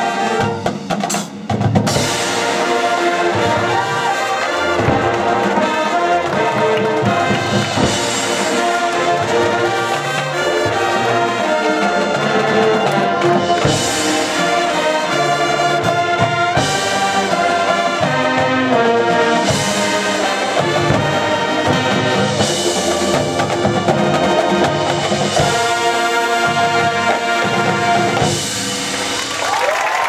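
High school marching band playing at full volume: massed brass with a drumline and front-ensemble percussion. Near the end the music stops and the crowd starts cheering and whistling.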